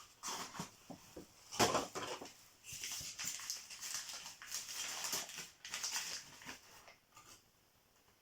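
Rustling, scraping and light clicks of a cardboard advent calendar box and its packaging being handled and opened, with one sharper knock about a second and a half in.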